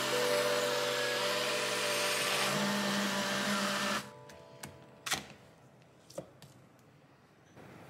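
Small portable battery-powered blender running with a steady whirr, then cutting off suddenly about halfway through. After it stops come a few light plastic clicks and knocks as the bottle is handled and its base unscrewed.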